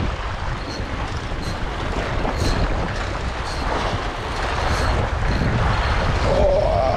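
Wind buffeting the microphone over waves washing against a rock ledge, a steady rumbling rush. Faint short ticks come about once a second, and a brief wavering tone sounds near the end.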